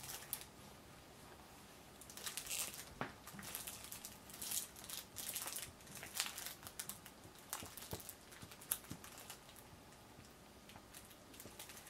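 Small product packaging being handled in the hands: faint, irregular crinkling and rustling that begins about two seconds in and dies away near the end.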